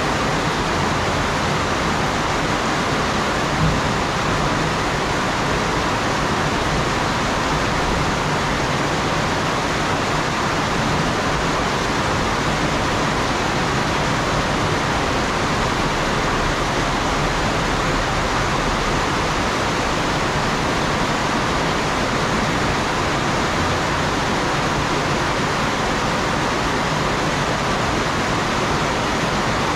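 Heavy tropical rain falling steadily on trees, leaves and the ground, an even hiss with no thunder, and a single brief tap about four seconds in.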